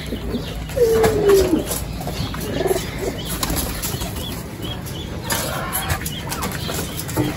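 Backyard pigeons and chickens: a drawn-out falling bird call about a second in, a shorter call near three seconds, and a rustle of flapping wings a little after five seconds.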